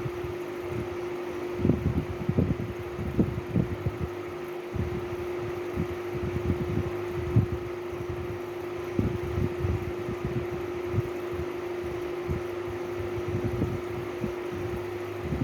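Steady mechanical hum holding one constant tone, with irregular soft low thumps and bumps over it, several close together at times.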